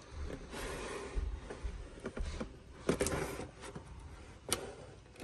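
Cardboard toy box being handled and turned over: irregular rustling and scraping of the box, with a few sharp taps or clicks, the clearest about three seconds in and again about four and a half seconds in.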